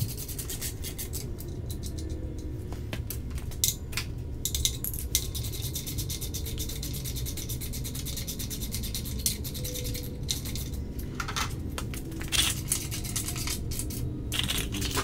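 Hand ratchet clicking in quick runs as bolts are turned in to fasten an engine adapter plate, with scattered single metal clicks and clinks.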